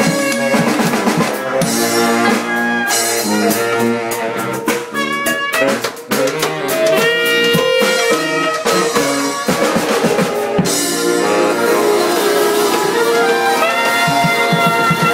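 Live brass band playing with drums, horns carrying pitched lines over snare and bass drum hits, with a brief drop in loudness about six seconds in.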